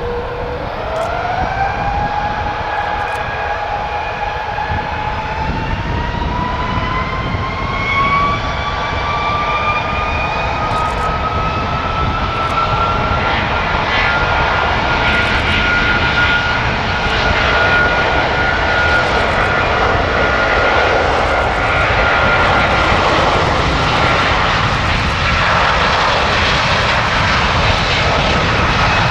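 An Airbus A330-343's two Rolls-Royce Trent 772B-60 turbofans spooling up to takeoff thrust. Their whine climbs in pitch over the first dozen seconds and then holds steady, while the jet roar grows louder through the takeoff roll.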